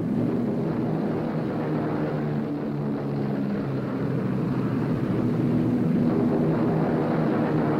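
Steady drone of a B-17 Flying Fortress's radial piston engines and propellers in flight, a low, even hum that swells a little about halfway through.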